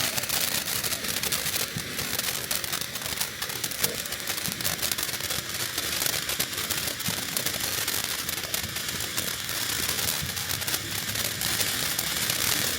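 Consumer firework crackling steadily: a dense, rapid run of small crackles over a hiss that keeps going without a break.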